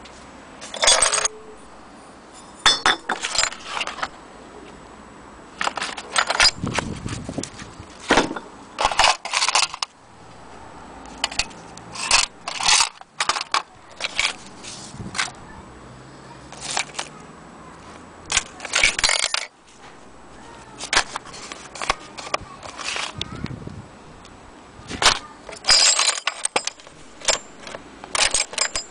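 Metal clock-repair tools and small parts being handled and set down: irregular clinks and clatters, many in quick clusters of several knocks, with handling noise between.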